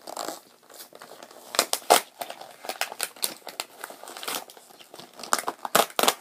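Plastic toy packaging crinkling and crackling in irregular bursts as a Shopkins pack is handled and opened.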